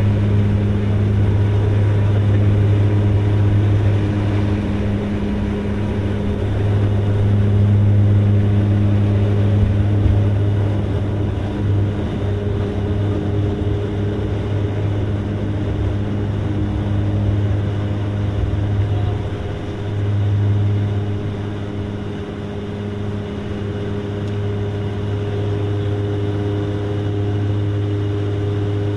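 Cabin noise of a DHC-8-Q400's PW150A turboprops at takeoff power: a strong, steady low propeller drone with tyre rumble on the takeoff roll, running on through liftoff into the climb. There is a single knock about ten seconds in.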